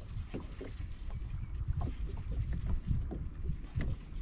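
Low rumble of wind on the microphone aboard a fishing boat, with scattered light knocks and taps.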